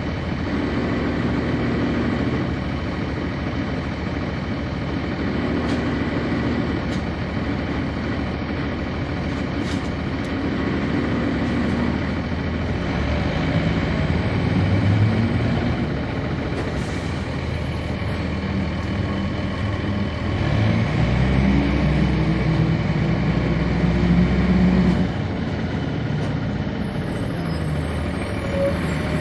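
Cummins ISC diesel engine of a 1999 Nova Bus RTS transit bus running. About twenty seconds in the engine note rises in pitch and grows louder, then drops back about five seconds later.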